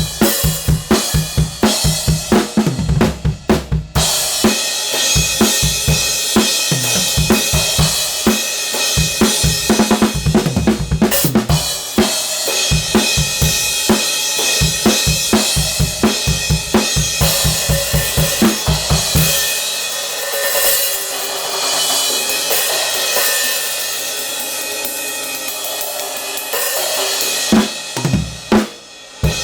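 Drum kit played in a steady groove, Kingdo SN8 B8 bronze cymbals washing over kick and snare. About two-thirds of the way through, the kick and snare stop and the cymbals ring on alone, then a few drum hits come back near the end.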